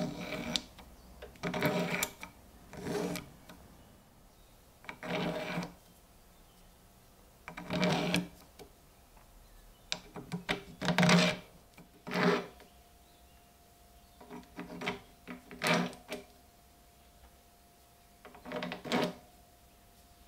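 Spacer rings being slid by hand onto a threaded metal rod and pushed together in a stack: about a dozen short bursts of clicking and rubbing, with pauses between them.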